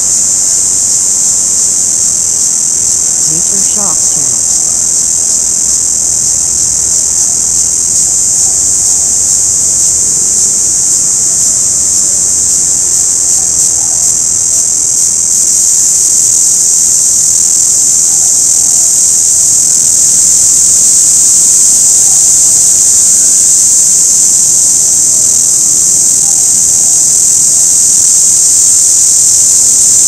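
Orange cicada singing: a loud, steady, high-pitched buzz that grows a little louder about halfway through.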